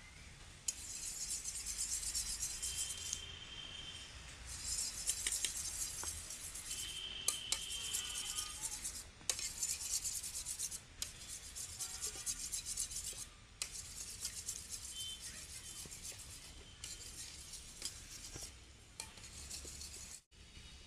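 Spoon beating duck eggs in a steel bowl: a rapid, high-pitched scraping that comes in several runs of a second or more, broken by short stops.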